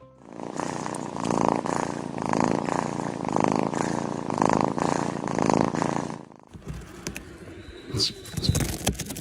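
A cat purring steadily, swelling and fading about once a second with each breath; it stops abruptly about six seconds in, leaving a few scattered clicks and knocks.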